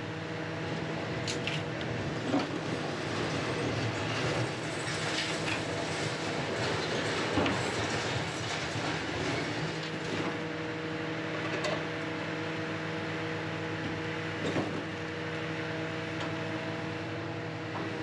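Scrapyard material handler working its lifting magnet over a trailer: its diesel engine and hydraulics run with a steady drone, with a few sharp clanks of metal along the way.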